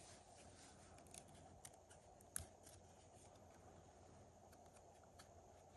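Near silence with a few faint, short clicks of 1998 Topps baseball cards being handled and laid down, the sharpest about two and a half seconds in.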